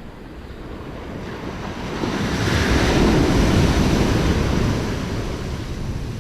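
A wave breaking and washing in: a rush of surf noise that swells over a couple of seconds, peaks about halfway through, then fades, with some wind on the microphone.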